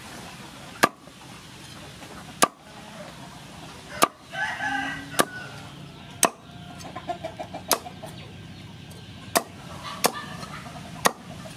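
A large knife chopping crispy-skinned fried pork belly on a wooden cutting board: about nine sharp single chops, one every second or so, with small crackling ticks between some of them. A brief pitched call sounds about four and a half seconds in.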